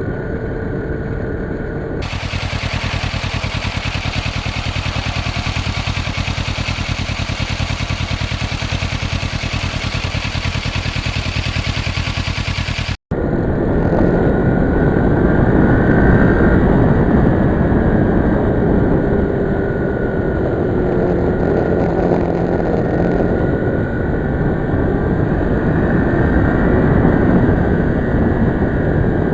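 650 motorcycle engine running under way with steady wind rush. The sound cuts out for an instant about halfway through and comes back with more wind and the engine pitch rising and falling.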